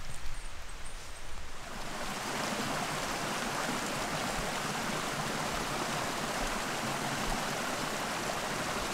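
Steady, even rushing of water that cuts in suddenly about two seconds in, after a quieter stretch.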